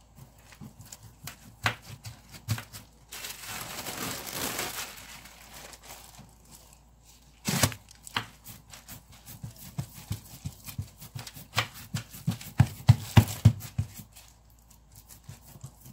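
Hands patting and pressing a large sheet of bulgur kubba dough flat on a plastic sheet: soft slaps and thumps on the dough, with the plastic crinkling and rustling. A stretch of rustling comes a few seconds in and a sharp rustle near the middle, then a quick run of pats late on.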